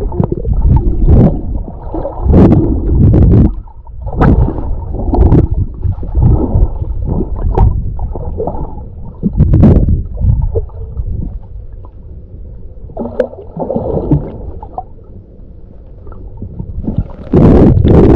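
Muffled gurgling and sloshing of water picked up by a camera held underwater, coming in irregular surges with a few sharp clicks, quieter for a few seconds past the middle and louder again near the end.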